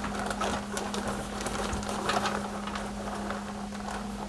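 Coated Rice Chex cereal pieces tumbling out of a plastic zip-top bag onto a baking sheet: scattered light clicks and bag rustling over a steady low hum.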